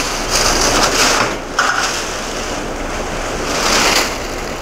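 Plastic vacuum-bag film crinkling and rustling as it is pulled and bunched off a mould, in surges, strongest about a second in and again near the end.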